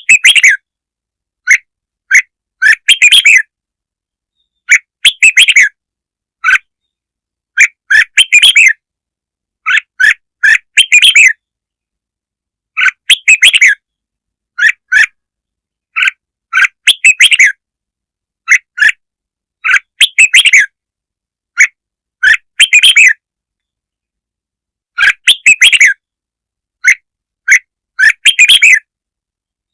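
Red-whiskered bulbul song: short phrases of quick whistled chirps, one every second or two, separated by dead silence.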